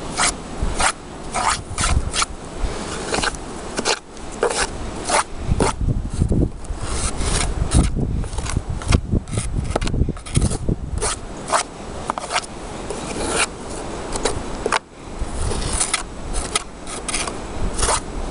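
A thin stick scraping and poking fresh snow out of a wooden beehive's entrance slot, in quick, irregular strokes that rub against the wooden hive body and landing board, clearing the entrance.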